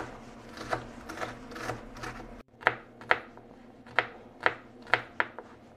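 Chef's knife chopping on a bamboo cutting board. First come soft, quick taps as onion is minced. After a brief dropout about two and a half seconds in, sharper knocks follow, about two a second, as garlic cloves are chopped.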